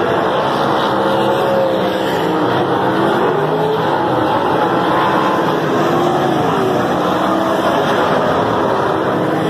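A pack of winged sprint cars racing on a dirt oval, several engines running loud at once, their pitches rising and falling as the cars lift and accelerate.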